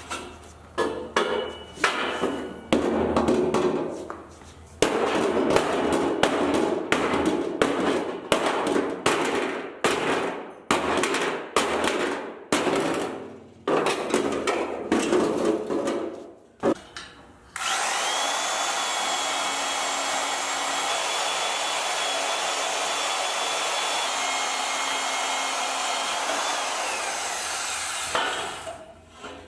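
Steel roll-cage tubing being worked: a long run of irregular metal knocks and strokes. Then a power cutting tool cuts through the tubing, running steadily for about ten seconds with a steady high whine, and winds down near the end.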